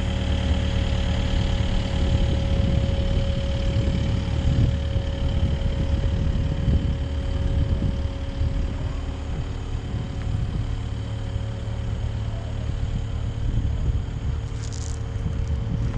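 Kubota excavator's diesel engine idling steadily: a low hum with a steady whine above it.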